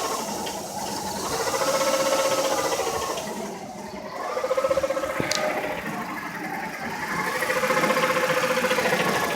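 Car engine running rough with its air cleaner off, its pitch rising and falling three times as it is revved up and let back down.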